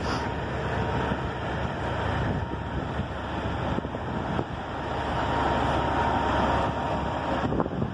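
Semi truck's diesel engine running steadily, mixed with wind buffeting the microphone.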